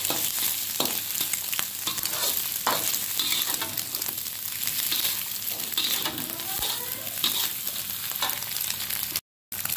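Egg, carrots and peas sizzling in oil in a wok while a spatula scrapes and tosses them: a steady sizzle with repeated scraping strokes against the pan. The sound cuts out for a moment near the end.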